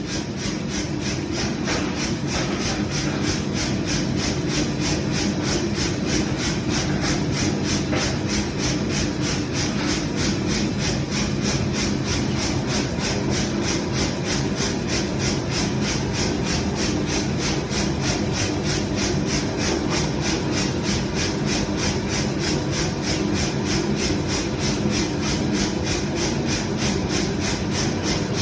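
Power hammer running steadily, striking about three times a second over a constant motor hum, as heavy iron pipe is forged.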